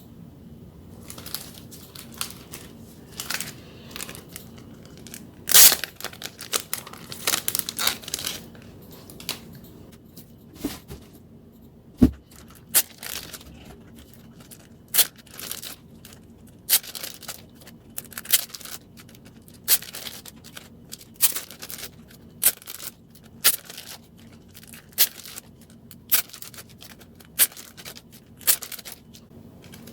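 Photocards and their plastic packaging being handled and sorted by hand: short crinkling and tearing strokes, falling into a fairly regular rhythm of about one a second in the second half.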